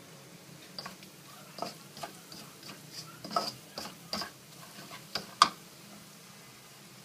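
Spatula scraping and knocking against a stainless steel wok while stirring frying garlic: a run of irregular clicks and scrapes, the loudest one about three-quarters of the way through.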